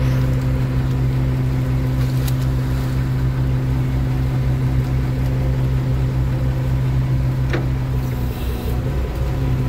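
Fishing boat's engine and deck machinery running steadily: a loud, even drone with a pulsing low beat underneath. A short metallic knock about seven and a half seconds in, and the drone wavers briefly near the end.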